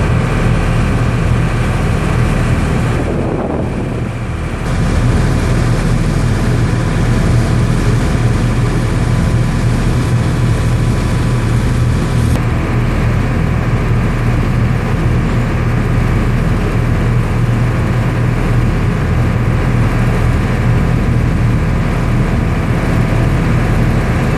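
Boat engine running steadily with a low, even hum, dipping slightly in level about three to four seconds in.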